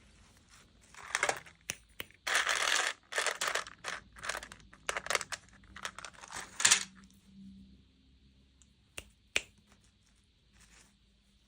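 Packaging handled and torn open: a run of crinkling, tearing rustles over several seconds, then two sharp clicks.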